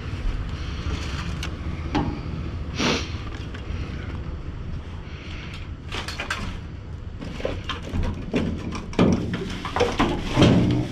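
Rummaging through a dumpster of trash with a long grabber tool: plastic bags and cardboard rustling, with knocks and scrapes against the metal bin over a steady low rumble. The knocks get busier and louder in the second half.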